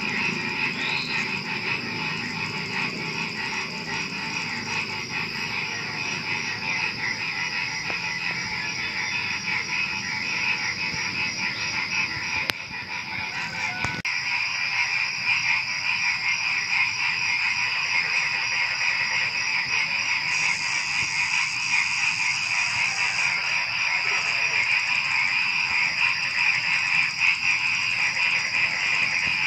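A dense chorus of frogs croaking, with a steady, high-pitched trill of crickets running over it.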